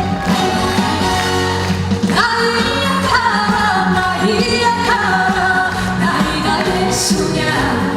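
Live band playing a Korean trot song, with singing carrying the melody from about two seconds in.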